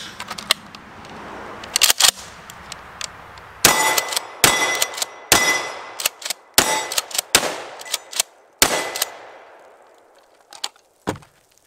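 Remington 870 DM 12-gauge pump-action shotgun being readied with a few light metallic clicks, then fired six times about a second apart, the pump worked between shots to eject and chamber shells.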